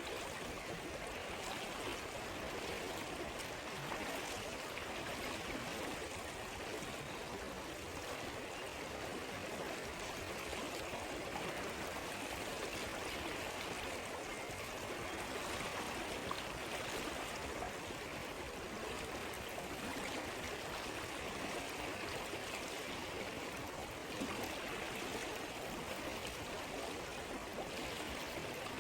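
A river flowing steadily over stones, a continuous rushing and burbling of water, with a few faint clicks now and then.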